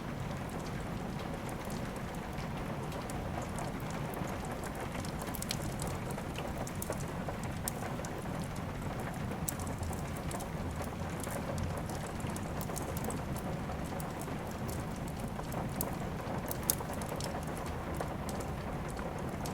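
Steady rain mixed with a crackling fireplace: an even hiss with scattered sharp ticks and pops, one of them louder near the end.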